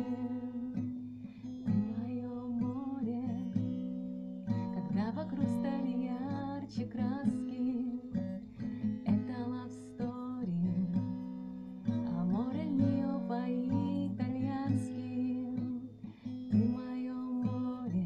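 A woman singing to her own strummed acoustic guitar, in phrases with short gaps between them while the guitar chords carry on.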